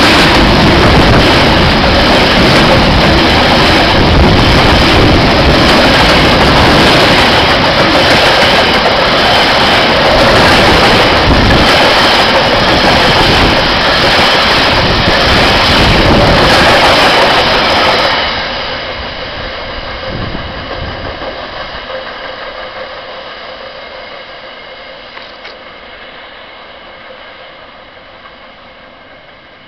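Freight train container wagons rolling past close by, with loud, steady wheel-on-rail noise. About eighteen seconds in the sound drops sharply and then fades away as the train moves off.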